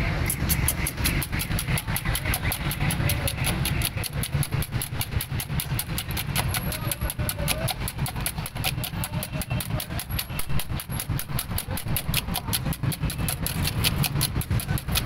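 Raw eggs being beaten by hand in a steel bowl: rapid, rhythmic clicking and slapping, about five strokes a second. Under it runs a steady low engine-like rumble.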